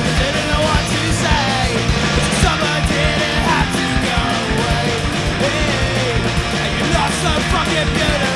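Punk rock band recording playing at a loud, even level: a full band with driving drums and a wavering melody line over the top.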